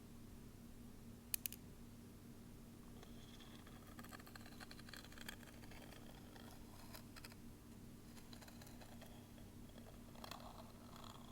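Tweezers picking at and shifting grains of rice against a microphone: faint, fine crackles and small clicks in irregular clusters, with two sharper clicks a little over a second in.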